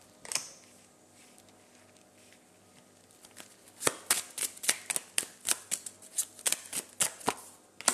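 A deck of tarot cards being shuffled by hand: a single snap, then from about halfway a quick run of card slaps, some three or four a second.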